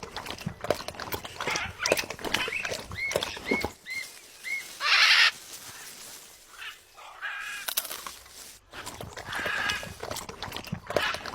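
A macaw calling: a run of four short chirps, then a loud harsh squawk about five seconds in, with clicking and chattering around it.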